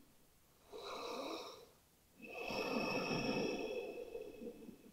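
A woman's breathing close to the microphone: a short breath about a second in, then a longer, slower breath.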